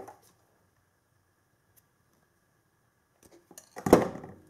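Hand tools and wire handled on a workbench: a soft rustle at first, a few small clicks, then one loud knock near the end.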